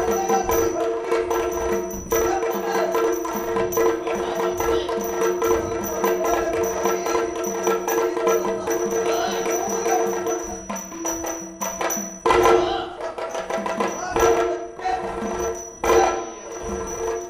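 Yakshagana theatre music: a steady drone under fast, dense drum playing. A few loud, sharp drum strikes come in the second half.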